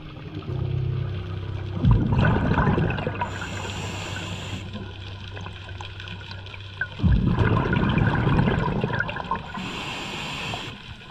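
Scuba diver breathing through a regulator underwater: two bubbling exhalations, each about two seconds long and about five seconds apart, each followed by a short hissing inhalation.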